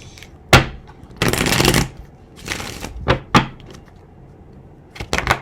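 A deck of chakra oracle cards being shuffled and handled: a sharp snap about half a second in, a longer shuffling rustle lasting under a second, then a few single card snaps and a quick cluster of them near the end.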